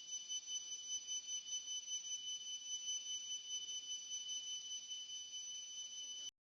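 Steady, high-pitched shrill of insects, pulsing quickly in level, that cuts off suddenly near the end.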